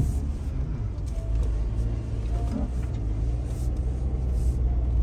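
Vehicle driving along a rough dirt track, a steady low rumble of engine and tyres.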